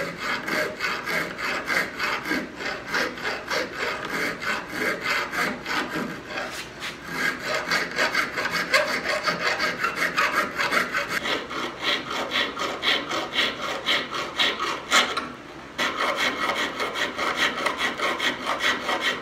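Hand file working steel in quick back-and-forth strokes, about three a second, shaping the mouth opening of a handmade infill shoulder plane's steel body. The strokes stop briefly about fifteen seconds in, then resume.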